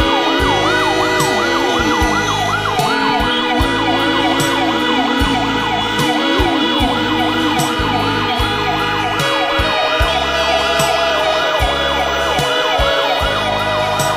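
A vehicle siren yelping up and down about three times a second, over several long steady horn blasts from stopped vehicles. This is the memorial signal of horns and sirens sounded across Azerbaijan on 20 January.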